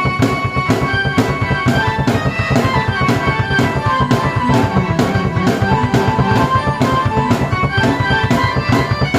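A drum kit played to a steady beat, with a keyboard melody over it, drums and keys played by one person at the same time.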